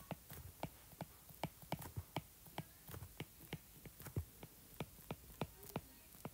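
Stylus tip tapping and clicking on a tablet's glass screen during handwriting: light, irregular clicks, about three or four a second.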